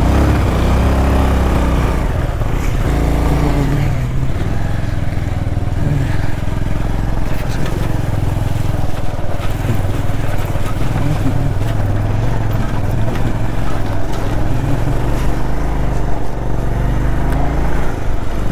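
Motorcycle engine running as the bike rides slowly over a rough gravel and stone track, its note rising and falling with the throttle in the first few seconds, then holding fairly steady.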